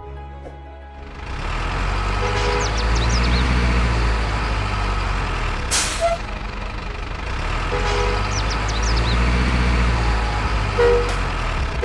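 A truck engine running with a steady low rumble, with short two-tone horn toots about two and a half seconds in, around eight seconds and near the end, and a brief hiss around the middle.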